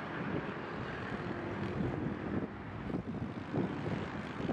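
Boeing 777's twin GE90 turbofan engines at takeoff thrust during the takeoff roll, a steady jet roar heard from behind the aircraft. Wind gusts buffet the microphone now and then.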